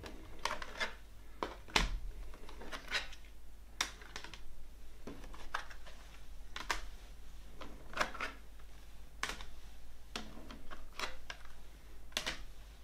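Plastic CD jewel cases clicking and knocking together as they are handled and lifted off a wooden tabletop: an irregular run of sharp clacks and light scrapes.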